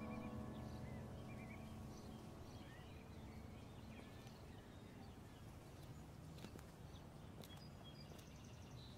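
Faint outdoor ambience with scattered bird chirps, as the background music fades out near the start.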